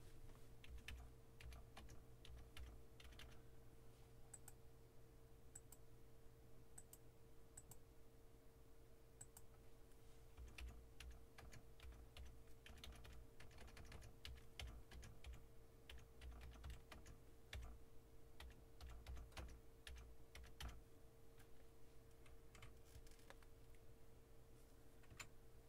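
Faint typing on a computer keyboard: scattered keystroke clicks, coming in quick runs from about ten to twenty seconds in, over a steady faint electrical hum.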